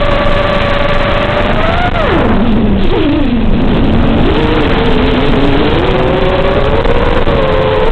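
Brushless motors (2204, 2300KV) of a 4S FPV freestyle quadcopter whining under a heavy hiss. The pitch drops sharply about two seconds in as the throttle comes off, then climbs back as power is added again.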